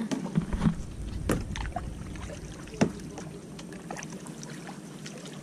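Kayak paddling: paddle strokes splashing in the water and knocking against the kayak, with a sharp knock just under three seconds in.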